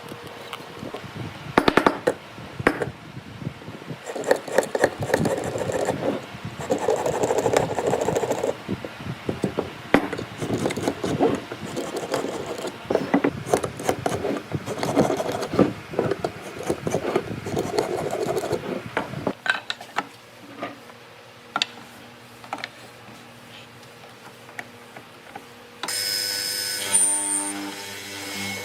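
Wood being worked by hand, a tool scraping or sawing in repeated strokes of about a second each, then a quieter stretch of light taps and knocks. Near the end a different sound with steady tones starts.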